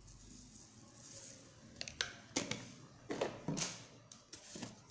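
Light, irregular clicks and taps of kitchen utensils and containers being handled, about eight from two seconds in, while salt is added to a bowl of puffed rice and peanuts.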